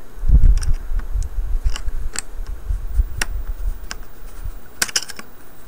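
Scattered small clicks and taps of hands handling the parts of an opened laptop, here the Wi-Fi card's antenna cables, over a low rumble of handling noise that is strongest about half a second in.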